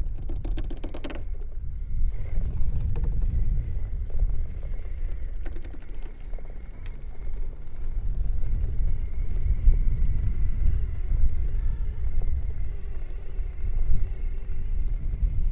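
A 1/10-scale Vanquish Phoenix RC rock crawler, driven by a Hobbywing Fusion Pro 2300kv brushless motor, crawls over rocks with a faint, steady high motor whine. A rapid clatter of rocks comes in the first second. A strong low rumble lies under everything and is the loudest part.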